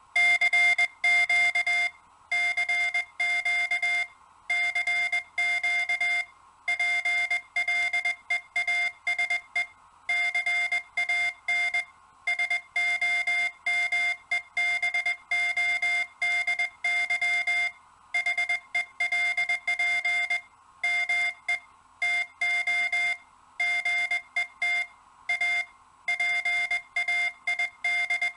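Morse code (CW): a steady tone of about 700 Hz keyed on and off in short dots and longer dashes, in groups separated by brief gaps.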